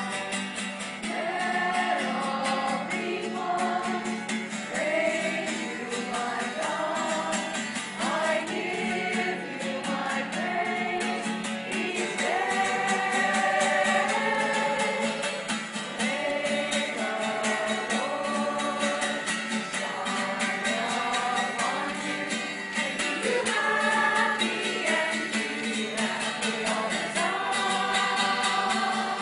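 A women's choir of religious sisters singing a hymn together, many voices moving from note to note without a break.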